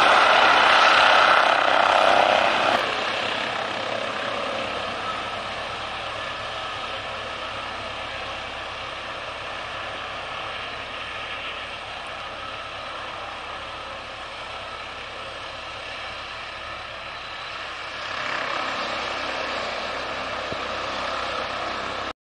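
Airbus ACH145 (H145 D3) helicopter's twin turbine engines and five-bladed main rotor running, with its Fenestron tail rotor. Loud at first while it hovers close by, then lower and steady as it sits on the ground with the rotor turning, swelling a little about eighteen seconds in, then cutting off suddenly.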